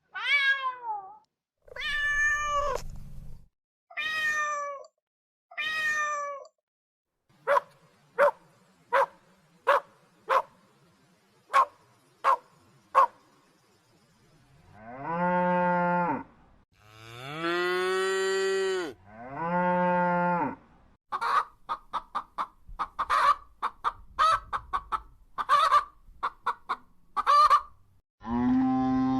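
A series of animal calls. First a cat meows four times, each call falling in pitch. Then come a string of short squeaks, three long, lower calls about a second and a half each, and a quick run of short chirps, with a cow's moo starting near the end.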